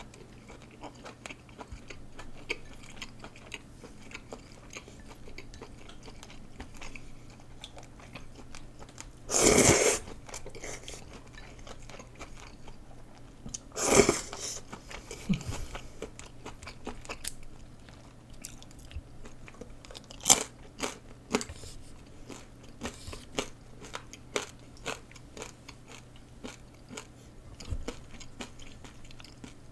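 A person chewing rice noodles with wet mouth clicks, with two loud slurps about 9.5 and 14 seconds in.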